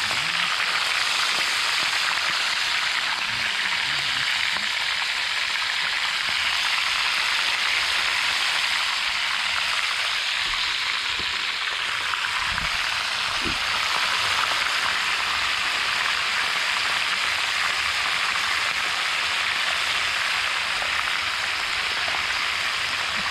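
Mojarra fish frying in hot oil: a steady sizzle.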